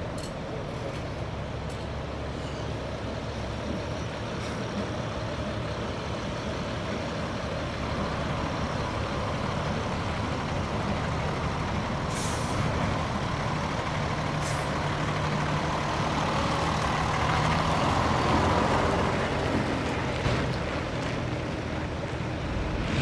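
Diesel dump truck engine idling steadily, with two short hisses of air about two seconds apart near the middle.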